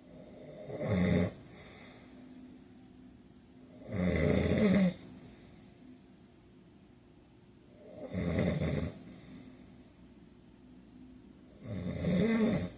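A man snoring: four snores, each about a second long, coming about every four seconds.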